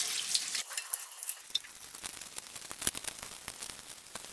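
Water from a kitchen faucet running over bok choy as it is rinsed by hand, a spattering hiss of water on the leaves.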